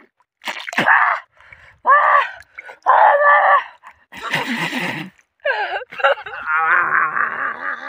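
A man groaning and crying out in a string of short, strained vocal sounds, ending in a long wavering cry.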